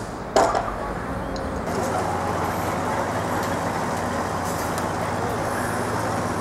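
Steady road-traffic noise with one sharp knock about half a second in, joined about two seconds in by a low, steady engine hum.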